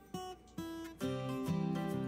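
Background music led by guitar: a few sparse notes in the first second, then fuller from about a second in.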